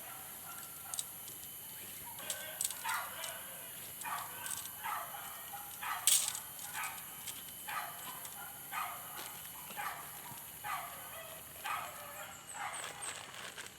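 A dog barking over and over, about one bark a second, each bark short and dropping in pitch at the end, with scattered sharp ticks.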